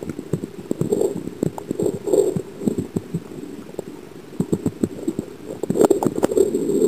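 Underwater camera sound: a run of irregular small clicks and knocks, with muffled swishing swells now and then as the camera moves through the water.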